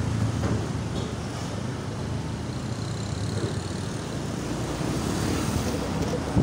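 Honda Scoopy scooter engine running steadily at low speed, heard from the rider's seat with tyre and wind noise, getting a little louder about five seconds in.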